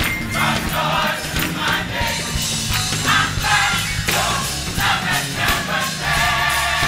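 Large gospel choir singing in full voice over a live band, with drums and cymbals keeping a steady beat under the voices.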